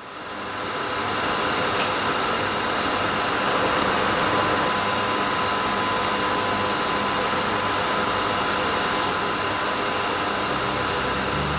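Steady machinery din of a textile mill running: a continuous hiss with a steady whine through it, fading in over the first second.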